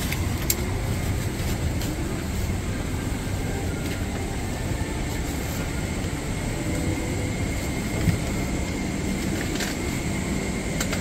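Steady cabin noise inside a Boeing 777-200ER parked at the gate: the even hum and rush of the cabin air system, with a faint high whine over it. A few light knocks come through, one about half a second in and two near the end.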